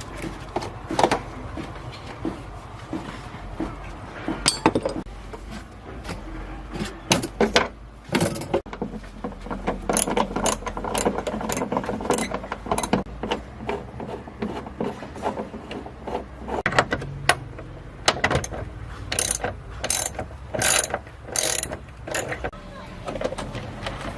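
Irregular mechanical clicking and knocking of metal parts being worked on by hand, over a steady low hum.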